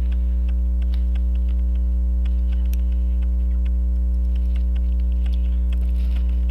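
Steady electrical mains hum, with faint irregular small clicks from a key winding the mainspring of an 18-size key-wind Elgin pocket watch.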